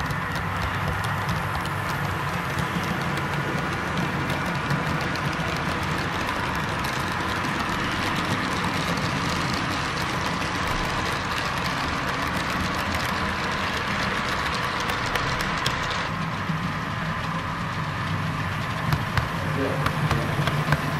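Model train led by a Verde Canyon Railroad FP7 diesel model rolling along the layout track: a steady running hum with light, scattered clicking of wheels on the rails.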